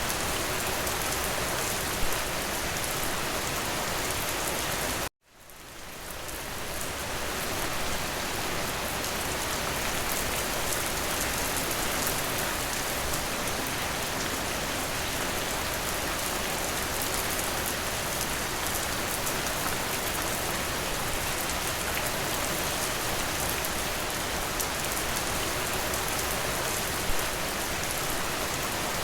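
Steady, even rainfall. About five seconds in it cuts out suddenly and fades back in over a couple of seconds, the join of a looped recording. A single sharper drop or tap stands out twice.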